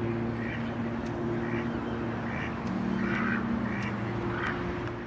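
Duck quacking over and over, about one call a second, with a steady low hum underneath.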